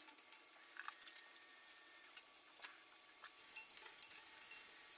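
Faint, scattered clicks and taps of a wooden spoon stirring sliced onions in an enamelled cast-iron pot, coming more often near the end.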